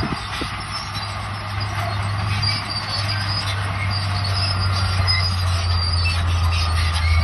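Crawler bulldozer working: a steady low diesel engine drone with scattered high squeals and clanks from its steel tracks.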